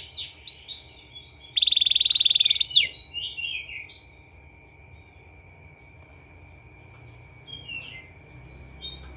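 Domestic canary singing: quick chirps, then a loud, fast rolling trill of about a second that ends in a falling whistle, followed by softer scattered chirps.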